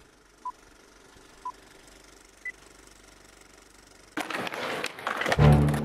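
Film-leader countdown beeps: three short beeps a second apart, then a fourth at a higher pitch. Faint hiss follows, then an irregular rattling clatter about four seconds in, and loud music starts near the end.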